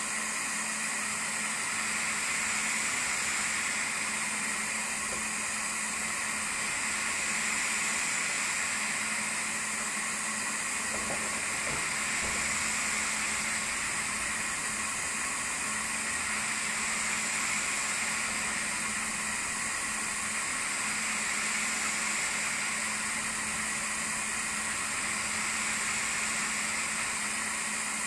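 CNC laser engraver running, its fans giving a steady hiss with a low hum underneath that swells and eases gently every few seconds. A few faint low knocks come about halfway through.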